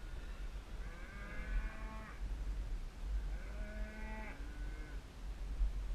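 Cattle mooing: two long calls, the first about a second in and the second about halfway through, over a steady low rumble.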